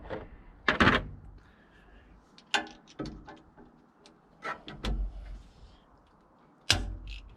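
About half a dozen irregular knocks and clanks of hand tools working a cap screw out of an excavator's swing case.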